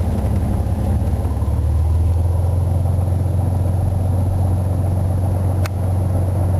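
Cessna 182's piston engine running steadily at taxi power, a low even drone heard inside the cabin. A single sharp click comes near the end.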